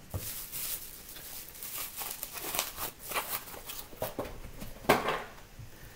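Packaging rustling and crinkling as it is handled and dug through, in irregular strokes, with the loudest sharp crackle just before five seconds in.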